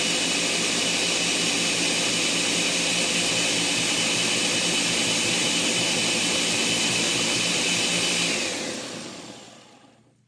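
Countertop blender running steadily, blending milk, strawberries and ice cream into a milkshake. It is switched off about eight seconds in and its motor winds down over a couple of seconds.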